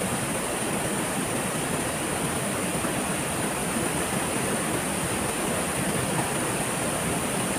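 Steady rushing of a waterfall: an even, unbroken roar of falling water.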